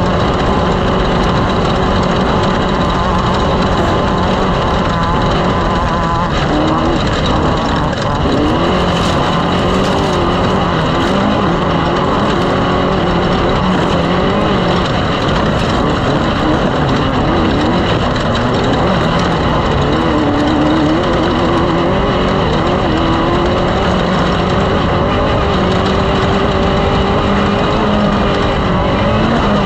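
Off-road race vehicle engines running, their pitch wavering up and down a little as they rev, over a steady loud rushing noise.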